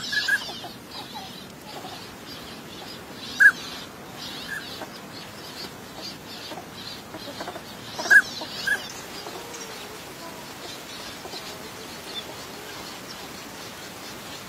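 Northern pintail drakes giving short, clear whistled calls, singly and in quick pairs, the loudest about three and a half and eight seconds in, over faint higher twittering.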